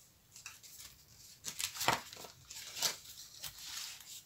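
Light clicks and rustles of plastic paint pots and cups being handled and set down on a tabletop, with the loudest knocks about two and about three seconds in.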